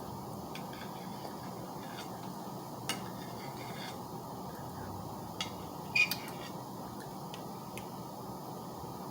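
A few light clicks of cutlery against a plate, the sharpest and loudest about six seconds in with a brief ring, over a steady background hiss.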